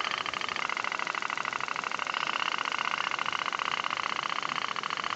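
Tin pop-pop (otok otok) toy boat's steam engine running, its heated boiler diaphragm making a rapid, steady putting.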